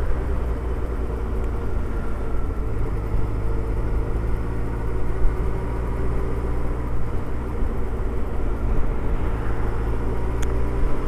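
Suzuki Hayabusa's inline-four engine running at a steady cruise, holding an even note, with road and wind noise underneath.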